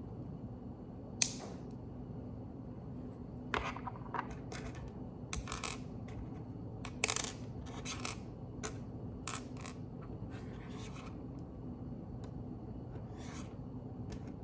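Plastic Lego pieces clicking and rattling as they are handled and snapped together, with sharper clicks about a second in and about seven seconds in, over a low steady hum.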